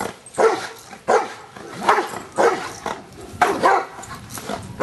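Giant Schnauzer barking repeatedly during Schutzhund protection work, about two short barks a second.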